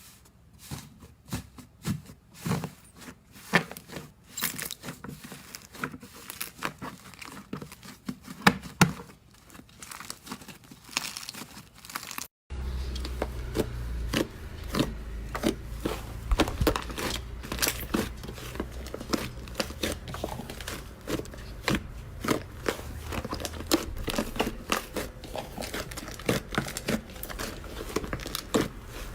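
Slime being played with by hand, giving a dense run of crackles and small pops. About twelve seconds in it cuts out briefly and another slime clip begins, louder, with a low hum underneath.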